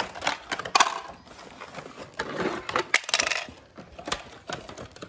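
Clear plastic action-figure packaging being handled and opened: irregular sharp plastic clicks and clacks with rustling, the loudest click a little under a second in.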